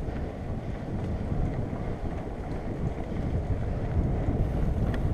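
Steady wind noise and low rumble on an action camera's microphone while riding a mountain bike along a dirt singletrack.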